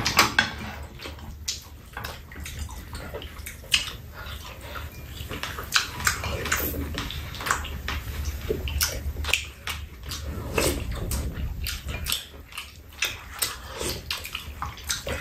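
Eating at close range: chewing, smacking and slurping, with wooden spoons clicking and scraping against a metal frying pan and bowls of fried rice and soup. Many short clicks and wet smacks are scattered throughout, over a low steady hum.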